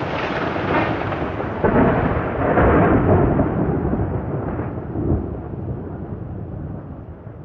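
A loud, deep rumbling roar that starts suddenly, swells about two seconds in, then slowly fades away.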